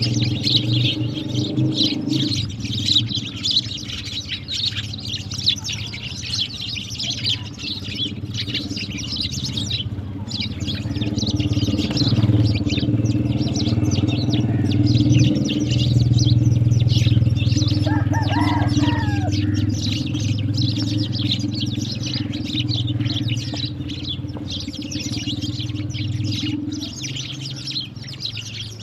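A flock of sparrows chirping continuously, many short chirps overlapping. Underneath runs a steady low motor hum that grows louder around the middle and eases off near the end.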